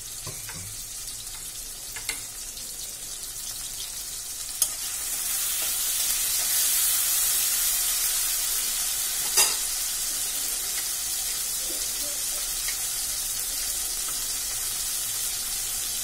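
Tomatoes and green chillies sizzling in hot oil in a metal kadai: a steady frying hiss that swells about five seconds in as the pan is stirred. A few sharp clicks of utensils on metal, the loudest about halfway through.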